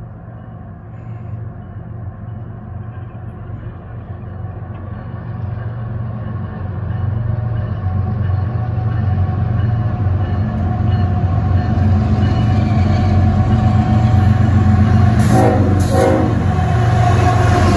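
Norfolk Southern freight train's diesel locomotives approaching, their low engine rumble growing steadily louder until they draw level. Near the end come two short pitched blasts, likely the locomotive's horn.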